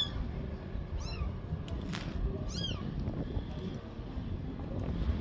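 Young grey tabby kitten crying, three short high-pitched meows about a second apart, over a steady low rumble.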